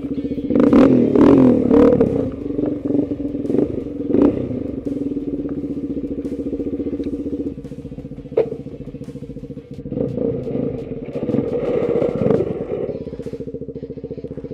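Small vehicle engine running steadily while plowing snow, with louder rough stretches of revving and scraping clatter in the first couple of seconds and again about two-thirds of the way through; the engine note drops about halfway.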